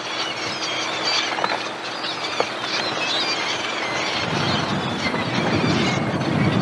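Seabirds feeding over the fish give many short, high, wavering calls above a steady wash of water and wind. A low rumble builds in over the last couple of seconds.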